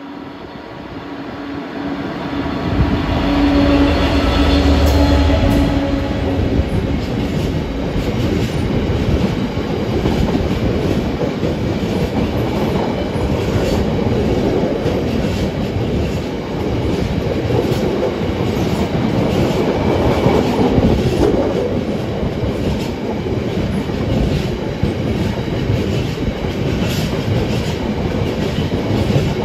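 Diesel-hauled freight train passing close by: a steady diesel engine note swells and fades over the first few seconds, then a long rake of wagons rumbles past with wheels clicking over the rail joints.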